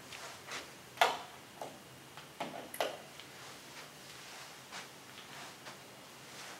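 Scattered sharp clicks and soft taps, the loudest about a second in and another pair near three seconds, over a faint steady room background.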